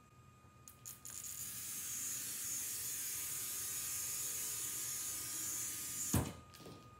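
A pressurised jet hissing steadily for about five seconds, cut off by a single sharp thump near the end.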